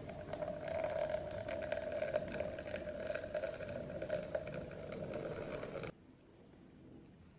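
A small motor running with a steady hum, with a crackle over it; it cuts off suddenly about six seconds in.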